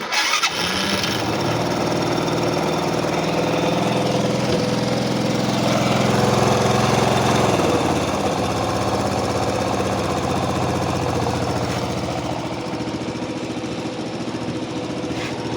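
Small Dailin scooter engine running with a freshly replaced head gasket. It is revved up about five seconds in and drops back to idle a couple of seconds later.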